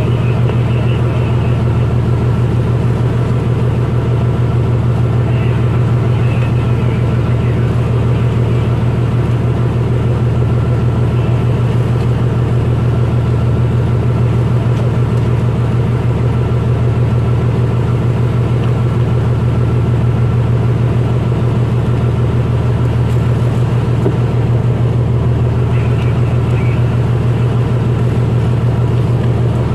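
Fishing boat's engine running steadily under way, a constant low drone that holds unchanged throughout.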